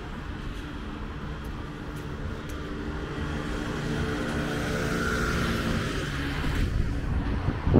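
Road traffic on a city street at night: a passing vehicle's engine hum swells and is loudest about five seconds in, then fades, over the steady noise of tyres and distant cars.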